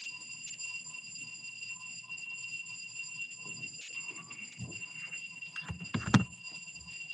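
Building fire alarm sounding a steady, unbroken high-pitched tone, heard over a video call through a laptop microphone. Faint rustling and handling noise, with a sharp knock about six seconds in.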